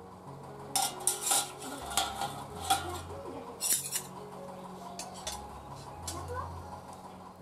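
Metal spoon clinking and knocking against a stainless steel bowl of curry, a quick run of clinks over the first few seconds that then dies away.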